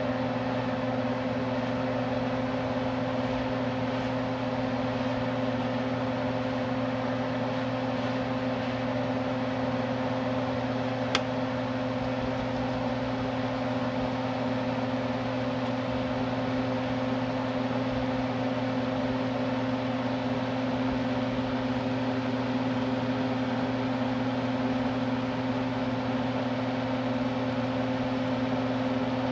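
Steady motor hum of a kitchen exhaust fan running, with a single sharp click about eleven seconds in.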